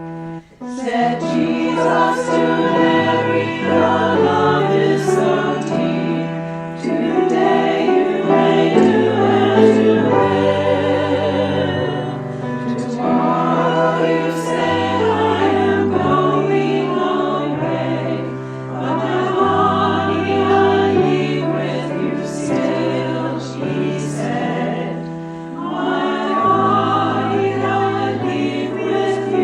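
Church choir singing a hymn in parts over sustained low accompanying bass notes, with a momentary break just after the start.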